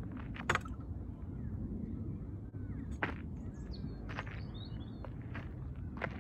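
Footsteps at a slow walking pace over wind rumbling on the microphone, with a few faint bird chirps near the middle.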